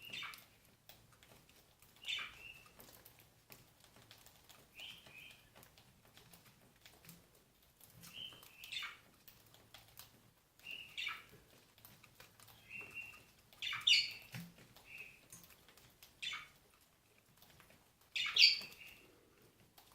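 Cockatiels giving short chirping calls every couple of seconds, the two loudest late on, with faint clicks between the calls.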